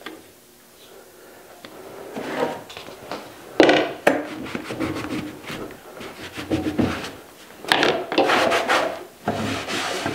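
Cloth rag wiping and rubbing over the pump housing and shroud of a Makita MAC5200 air compressor that is switched off, in irregular swipes. The loudest swipes come about four seconds in and again near the end.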